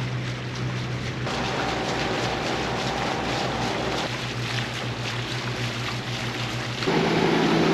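A sailing catamaran's engine running steadily while the boat motors along, over a haze of wind and water noise. Near the end it grows louder and fuller.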